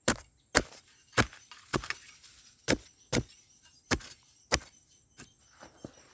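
Metal digging blade chopping repeatedly into dry soil: about nine sharp strikes, roughly two a second, then a few lighter taps near the end.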